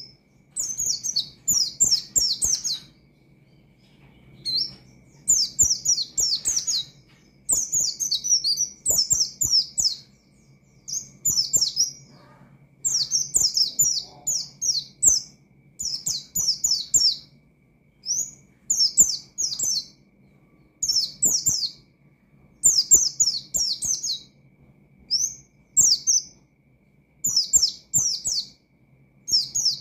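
White-eye (pleci) singing in rapid bursts of high chirping notes, one burst every second or two with short pauses between.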